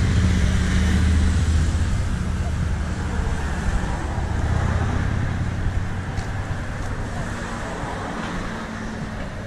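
Street traffic: a passing motor vehicle's low engine hum, loudest at the start and fading away over several seconds.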